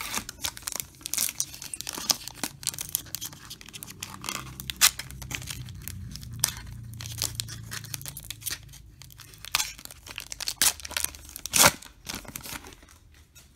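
A trading-card pack wrapper being crinkled and torn open by hand, a dense run of sharp crackles with the loudest crack near the end.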